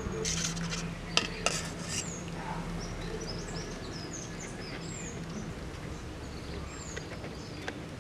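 A steel serving spoon clinking and scraping against stainless-steel plates as food is dished out, with two sharp clinks about a second in, then lighter scrapes.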